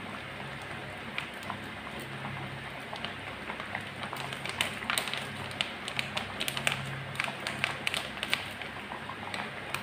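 Jackfruit rendang in thick coconut milk simmering in a wok, with scattered popping and crackling of bubbles that grows busier about four seconds in, over a steady low hum.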